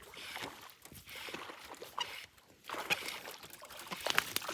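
Faint water splashing and dripping with small knocks and rustles, in short stretches, as a hooked bass is brought into the boat.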